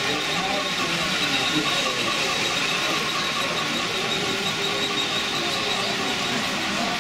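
HO-scale model trains running on the layout track: a steady running noise with a thin, high squeal-like tone held throughout.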